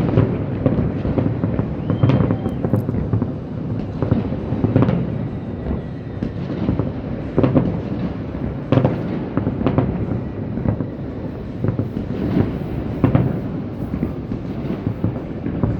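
Fireworks from several displays at once, heard at a distance: a continuous low rumble of shell bursts with frequent sharper bangs and crackles at irregular intervals.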